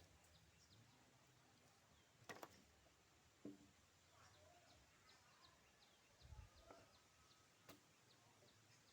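Near silence with faint, high, short bird chirps repeating about two to three times a second, a few sharp clicks, and a low thump about six seconds in.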